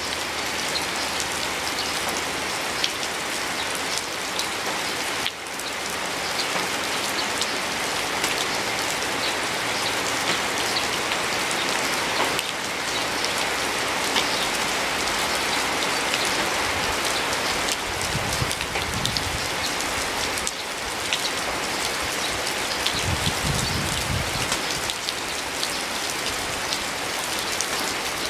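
Steady rain falling on leaves, a dense patter of countless separate drops. A low rumble swells briefly twice in the second half.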